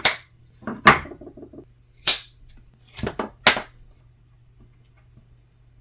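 Duct tape being cut and handled: about six short, sharp snips and crackles, spread over the first four seconds.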